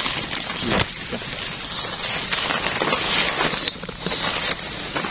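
Rustling and crackling of dry grass and undergrowth, with handling noise, as a wire-mesh trap is moved about in the brush.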